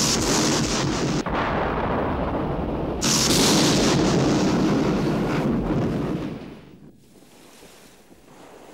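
Loud booming crash sound effects, one at the start and a heavier one about three seconds in, rumbling on and fading out about six and a half seconds in.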